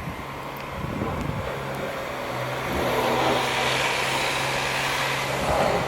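A motor vehicle running with a steady low hum, its noise swelling from about halfway through.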